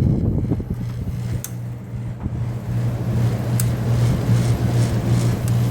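8,000 BTU GE Fashionaire window air conditioner running, its compressor humming steadily under the rush of the fan, with a couple of light ticks. The compressor doesn't really sound that good, which the owner puts down to vibration.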